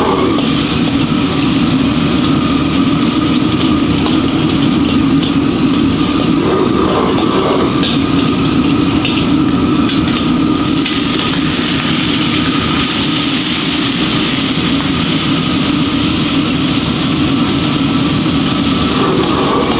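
A machine running with a loud, steady drone that holds unchanged throughout.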